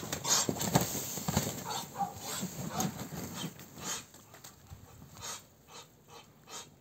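Two pearl-grey Muscovy drakes fighting: wings flapping and bodies scuffling in the snow, loudest and busiest for the first four seconds, then quieter and more scattered.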